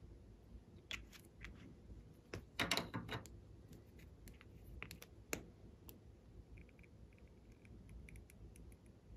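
Faint clicks and a brief, louder crackle about two and a half seconds in from a plastic lip-gloss squeeze tube being handled and squeezed onto slime.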